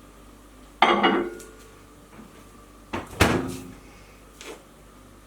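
Two clattering knocks of a bowl being handled, about two seconds apart, each with a brief ringing after, then a faint click.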